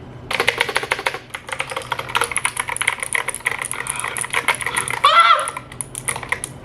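Rapid typing on a Razer BlackWidow V3 Tenkeyless mechanical keyboard's clicky Razer Green switches, many keystrokes a second, which thin out near the end. About five seconds in, a short pitched sound rises and falls over the clicking, the loudest moment.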